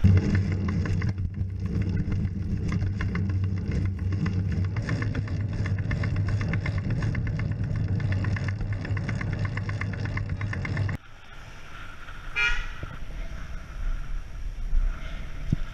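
A car horn held down continuously for about eleven seconds, then cutting off suddenly, leaving quieter wind noise.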